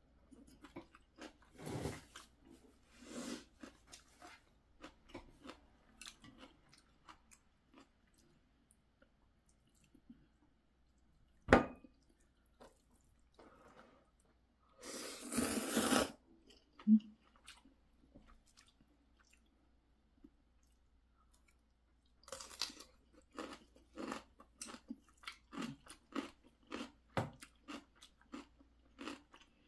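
Close-up eating sounds of ramen noodles and kimchi: scattered chewing, a sharp click about a third of the way in, a short slurp of noodles about halfway through, and quick crunchy chewing over the last several seconds.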